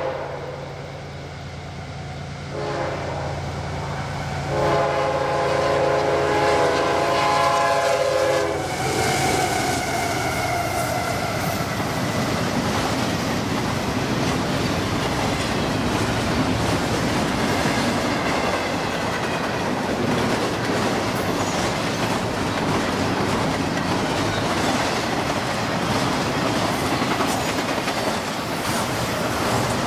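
CSX freight train led by a GE ES44AH locomotive sounds its horn for several seconds, louder from about four seconds in, cutting off near nine seconds. The locomotives' sound falls in pitch as they go by, and after that comes the steady rumble and clickety-clack of intermodal well cars rolling past.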